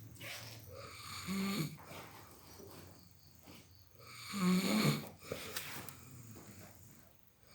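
A sleeping person snoring: two loud snores about three seconds apart, with softer breath sounds between them.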